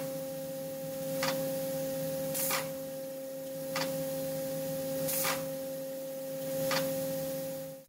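Industrial machine running with a steady hum, its pivoting limit-switch bracket cycling back and forth; each stroke, about every second and a quarter, brings a sharp click or a short hiss.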